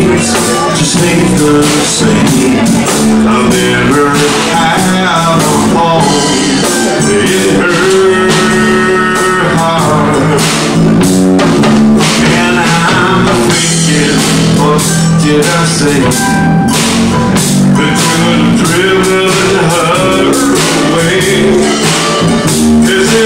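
Live blues band playing an instrumental passage: harmonica played through a microphone cupped in both hands, over drums with timbales and cymbal, electric bass guitar and ukulele.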